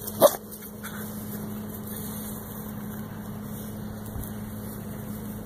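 A dog gives one short bark just after the start. A steady low machine hum with a constant pitch follows, like an idling engine.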